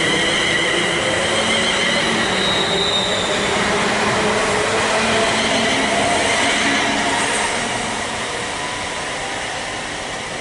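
London Northwestern Railway Class 350 Desiro electric multiple unit pulling out past the platform: a high whine of several steady tones over the rumble of its wheels, fading away near the end as the train leaves.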